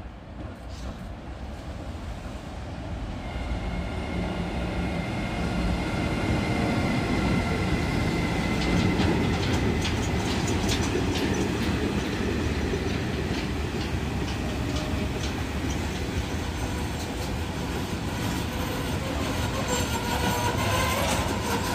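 A Siemens Vectron locomotive pulling a freight train of tank container wagons approaches and rolls past, growing louder over the first six seconds and then holding steady. High steady whining tones come in about three seconds in, and the wagon wheels clack over the rail joints.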